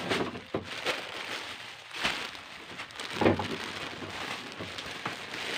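Clear plastic packaging bags rustling and crinkling as plastic-wrapped clothes are handled, with a louder rustle about three seconds in.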